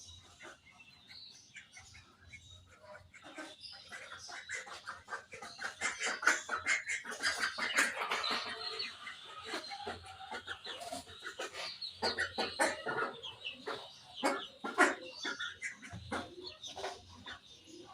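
A group of budgerigars chirping and chattering in a dense run of quick, high calls, quieter at first and busiest through the middle.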